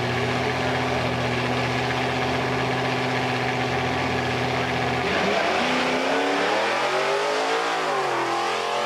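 Drag-racing launch: a 1987 Buick Grand National's turbocharged 3.8-litre V6 and a second car's engine hold steady revs at the starting line. About five seconds in, they launch and the engine note climbs, then drops near the end.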